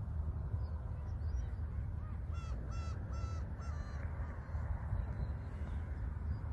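A bird gives a quick series of about five harsh calls around two to four seconds in, over a steady low outdoor rumble.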